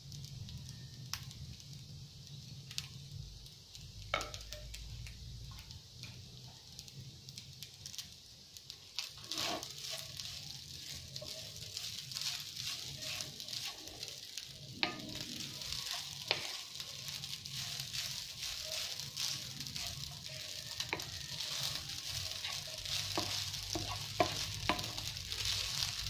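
Fried rice sizzling in a nonstick frying pan as a wooden spoon stirs and turns it, with scattered knocks and scrapes of the spoon against the pan. The sizzle grows louder about nine seconds in, over a low steady hum.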